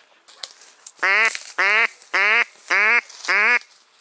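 A duck quacking: five loud, evenly spaced quacks, about two a second.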